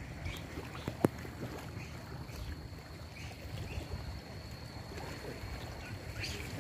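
Quiet ambience in a small wooden outrigger canoe on calm water: a low steady rumble with faint water sounds, and one sharp knock about a second in.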